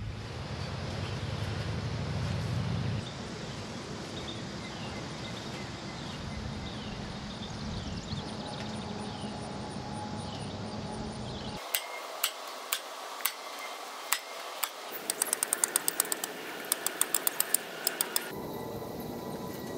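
Staple gun fastening chicken wire to a wooden frame: sharp clicks, a few single ones, then quick runs of about five a second. Before them, steady outdoor background noise with a low hum, strongest in the first few seconds.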